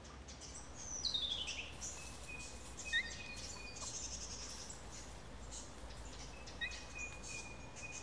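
Rainforest birdsong: a bird's run of notes falling in pitch about a second in, then long, level whistles, each opened by a short note, twice, over faint insect chirping.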